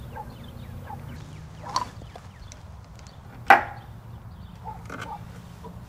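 A few small wooden knocks and clicks as things are handled at a wooden chest, the loudest a single sharp knock about three and a half seconds in, over a low steady hum.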